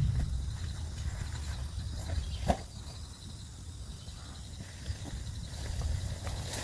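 Wind buffeting the microphone: a low rumble that eases off after the start and builds again near the end, with one sharp knock about two and a half seconds in.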